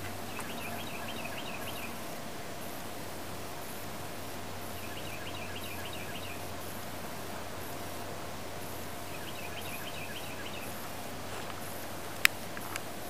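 A small bird singing a short, high, fast chirping phrase that comes back about every four to five seconds, over steady outdoor background noise with a faint hum. A single sharp click about twelve seconds in.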